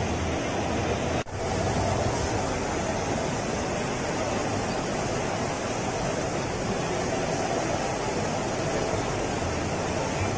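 Steady, even rushing noise of a working flatbed UV printer and the exhibition hall around it, broken by a brief dropout about a second in.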